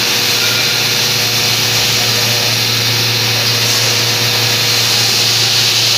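Industrial ring-forming press machine running with a steady low hum and a constant hiss while the steel ring is heated before pressing; the hum comes in right at the start.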